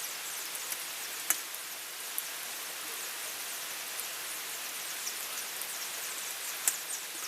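Steady hiss of rain with short high chirps scattered through it. Two sharp knocks, about a second in and near the end.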